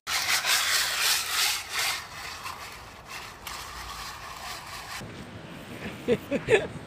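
A yellow plastic toy scraping and rubbing along wet asphalt as a dog pushes it with its nose and paws. The scraping is loudest in the first two seconds, then quieter. Near the end come a few short, sharp squeaks.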